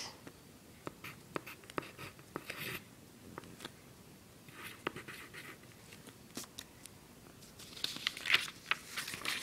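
Pencil writing on graph paper, faint scratching strokes as the answer is written out; louder paper rustling near the end as the sheet is handled.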